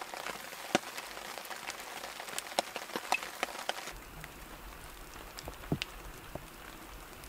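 Icy snow pellets hitting a camp tarp: a quick, irregular ticking over a light hiss. About four seconds in the ticks become sparser and quieter.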